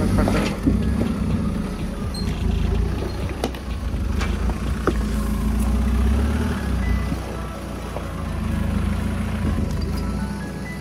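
Mahindra Thar's engine running steadily at low revs while crawling over river stones, with a few sharp knocks around the middle.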